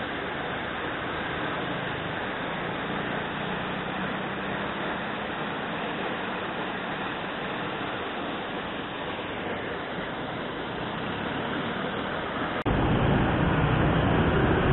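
Steady rushing noise, with no clear pitch or rhythm, that turns suddenly louder and deeper near the end.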